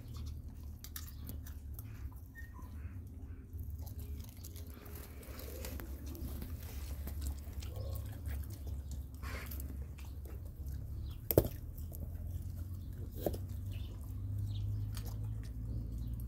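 Baboon chewing and biting pumpkin, with soft crunching and scattered small clicks. A sharp knock comes about eleven seconds in and a smaller one about two seconds later, over a steady low rumble.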